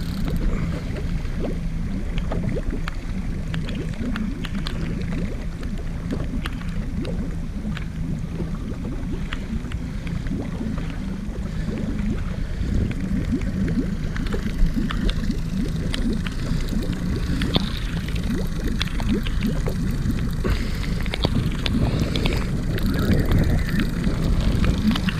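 Steady low rumble of wind and open water, with a steady low hum under it and scattered small clicks and knocks.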